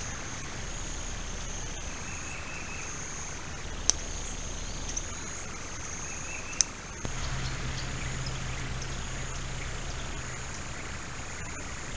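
Steady high-pitched insect drone in woodland, with two sharp clicks, one about four seconds in and one past six seconds. About seven seconds in, a low steady hum joins it.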